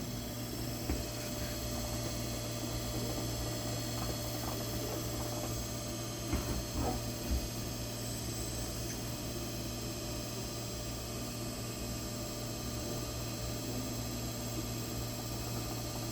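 Steady electrical machinery hum with several constant tones, and a few faint knocks about six to seven seconds in.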